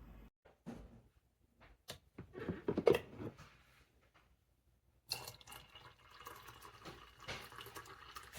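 Liquid dripping and splashing in short, irregular bursts, the loudest about three seconds in: coffee dripping from a drip coffee maker that leaks and makes a mess when it brews. The sound cuts out for a moment near the middle and resumes busier.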